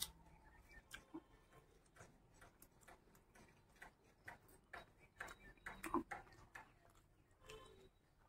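Faint, irregular clicking mouth sounds of a person chewing a handful of rice and curry, with a few louder smacks about five to six seconds in.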